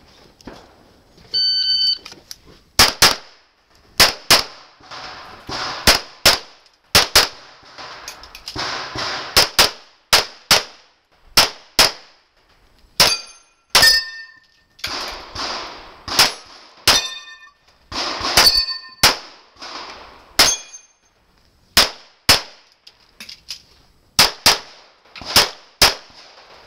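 A competition shot timer beeps once, then a pistol fires shot after shot, mostly in quick pairs, with short pauses between strings as the shooter moves. A few hits ring out from steel targets.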